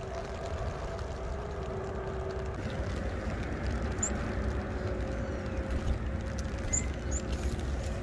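Steady rain with a low rumble and a faint steady hum underneath, and three brief high chirps from small mountain birds, one about halfway through and two close together near the end.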